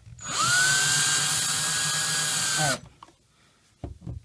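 A 19.2-volt cordless drill/driver drives an outlet's mounting screw into the electrical box, its motor whine spinning up, holding steady for about two and a half seconds, then winding down with a falling pitch as it stops. A few light taps follow near the end.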